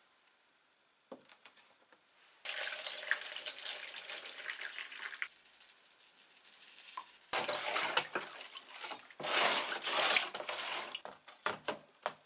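Water pouring into a plastic storage tub in three spells of a couple of seconds each, filling it as a salt-water bath. About a second in there is a light knock as the tub is set down on the wooden bench.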